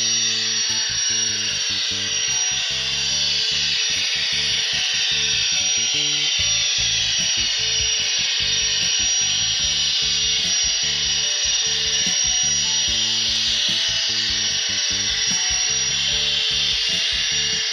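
HO-scale Union Pacific gas-turbine locomotive model running past with a high, steady turbine whine. Background music with a changing bass line plays underneath.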